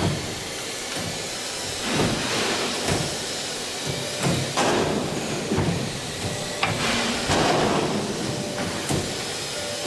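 50CNC 2A-1S CNC pipe bending machine running its cycle: a steady hiss with several short clunks every second or two as its parts move and stop.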